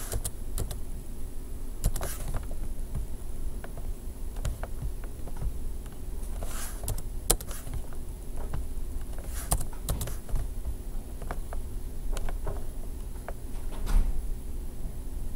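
Scattered computer keyboard keystrokes and mouse clicks, with a few louder clicks, over a steady low background hum.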